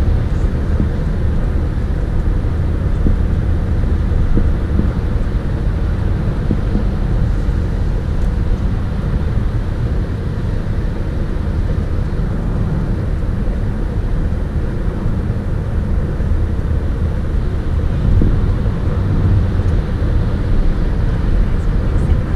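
Steady road noise inside a moving car's cabin at highway speed: an even, low rumble of tyres and engine.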